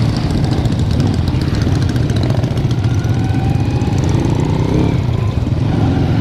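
Engine running steadily at a constant pace, its low hum holding level throughout.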